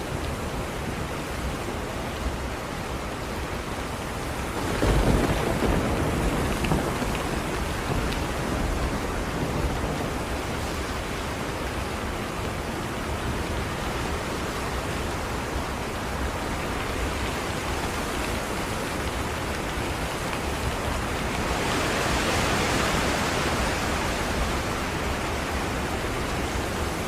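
Steady heavy rain, with a low rumble of thunder about five seconds in. The rain swells louder for a few seconds a little past the twenty-second mark.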